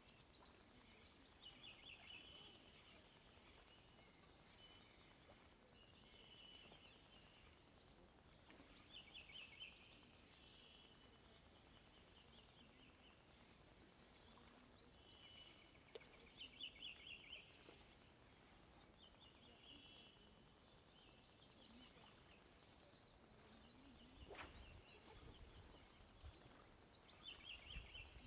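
A songbird sings faint, short trilling phrases, one every few seconds, over quiet outdoor background. There is a single sharp knock near the end.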